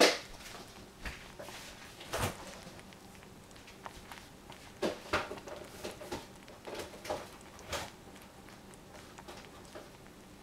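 A saucepan of strawberries simmering in sugar syrup, with bubbles popping irregularly through the foam, and a sharp knock at the very start.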